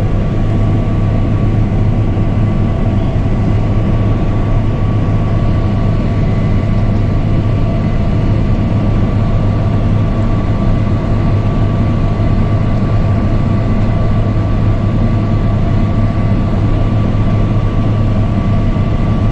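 Case combine harvester with its Iveco engine running steadily while harvesting barley, heard from inside the cab: a constant low drone with a faint steady whine over it.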